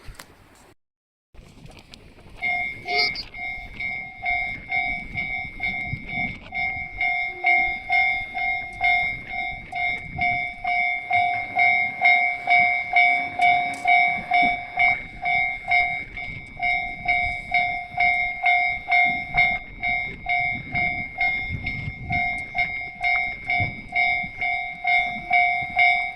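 Railway level crossing warning bell ringing: a clanging pitched strike repeating evenly at a bit under two strikes a second, starting about two seconds in.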